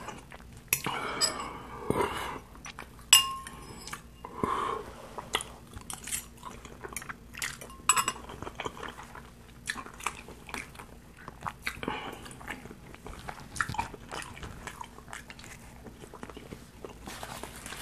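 Close-miked chewing and mouth sounds of someone eating spicy noodles, with a metal fork scraping and clinking against a glass bowl, a couple of the clinks ringing briefly.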